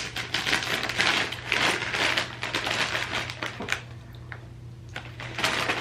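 Crinkly plastic snack packet being opened and rustled: dense rapid crackling that eases off about four seconds in, then picks up again near the end.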